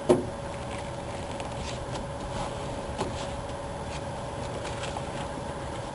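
Vinyl roof material being handled and pulled down over the roof edge: faint scraping and crinkling, with a sharp knock just after the start and a lighter one about three seconds in, over a steady background hum.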